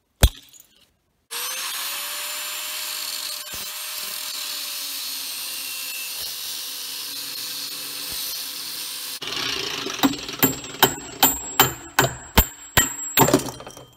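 Angle grinder with a cut-off disc spins up and cuts through the steel shaft of a Detroit Diesel turbocharger's turbine wheel, running steadily for about eight seconds before it stops. Then comes a quick run of about ten sharp, ringing hammer blows on the metal.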